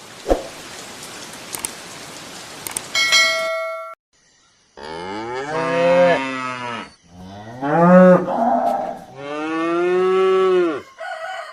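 Cow mooing three times, each a long low call of about two seconds with short gaps between. Before the moos come a steady hiss with a single click and a short ringing tone about three seconds in.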